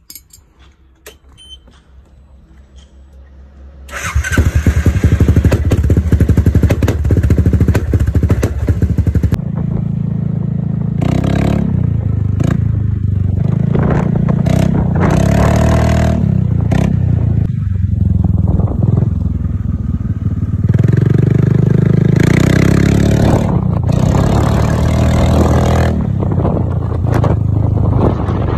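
Piaggio MP3 500's single-cylinder four-stroke engine breathing through an aftermarket copy of an Akrapovic exhaust: it starts up about four seconds in, then runs with a deep exhaust note and is revved up several times.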